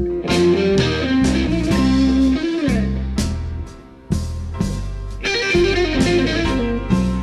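Slow electric blues played live by a rock band: lead electric guitar plays bent, gliding notes over bass and drums. The band drops out briefly about three and a half seconds in, then comes back in together.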